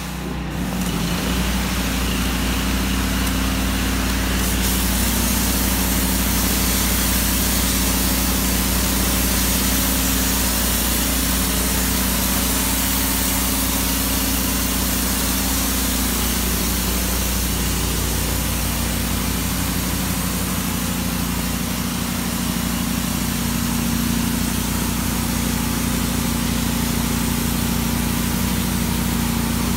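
Pressure washer running steadily under load: a constant engine drone beneath the hiss of the General Pump Soap Shooter nozzle jetting a long, high stream of soap solution.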